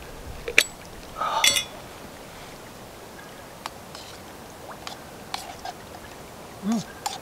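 Metal camp cookware clinking, with a louder clatter about a second and a half in, then a spoon stirring and tapping lightly inside a small metal cooking cup of chili.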